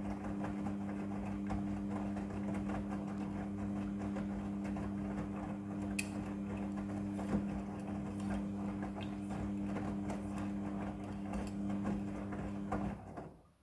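Midea front-loading washing machine running through its wash: a steady motor hum with irregular clicks and rustling from the turning drum. It cuts off suddenly near the end.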